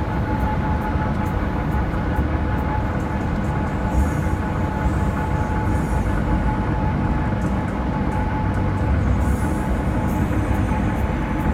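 Steady road noise of a vehicle travelling at highway speed: a continuous low tyre and engine rumble with a constant humming tone above it.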